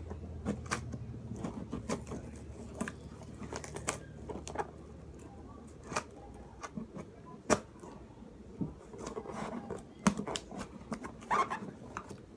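Packaging being handled and opened by hand: irregular rustling and crinkling broken by sharp clicks and taps, the loudest snaps about seven and a half and ten seconds in.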